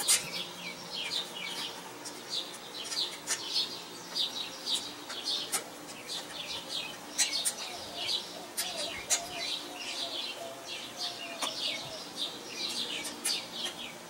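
Small birds chirping over and over in the background: short, quick high chirps, with a faint wavering call in the middle. A few sharp clicks are heard among them.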